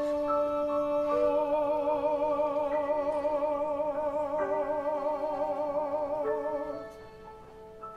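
Music: held notes and chords, one line wavering with vibrato, dropping much quieter about seven seconds in.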